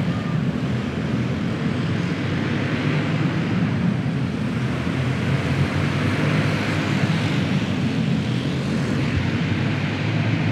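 A pack of dirt karts with single-cylinder four-stroke clone engines racing, their overlapping engine buzz holding steady.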